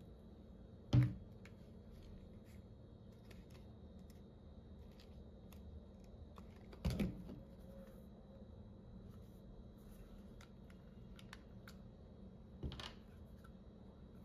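Small cosmetic containers being handled by hand: scattered light plastic clicks and taps, with three louder knocks, about a second in, around seven seconds and near the end.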